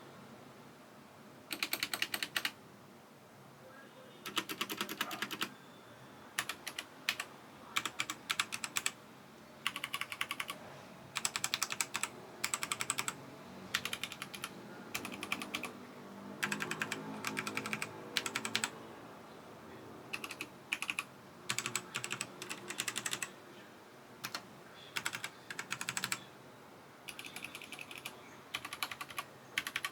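Mechanical keyboards typed on in short bursts of rapid key clicks, with brief pauses between the bursts: a sound test of a budget plastic-cased Machinike K500 against a Keychron K4 modded with foam.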